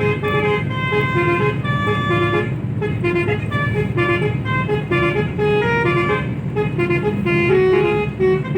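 Bus 'telolet' multi-tone horn playing a quick melody of short notes that step up and down in pitch, over and over, with the bus engine running underneath.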